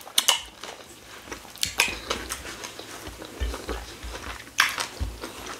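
Close-miked eating of fufu and ogbono soup by hand: wet mouth clicks, lip smacks and chewing, with finger licking, scattered sharp clicks and a few dull low thumps in the second half.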